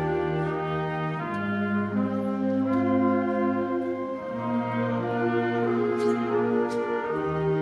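High school concert band playing long held chords led by the brass, the harmony changing every second or two. The lowest bass notes drop out about a second in and come back near the end. Heard from the audience seats of the auditorium.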